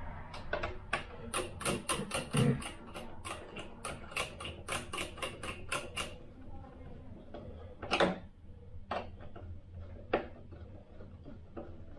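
Rapid run of light, sharp clicks and taps from small hard parts being handled at a model-building bench, about four a second for the first six seconds, then single clicks about eight, nine and ten seconds in.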